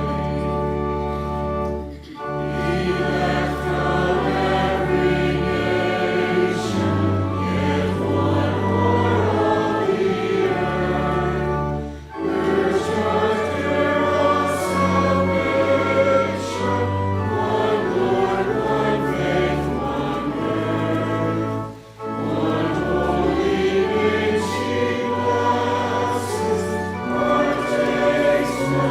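Choir singing a hymn in long held phrases, broken by brief pauses about every ten seconds.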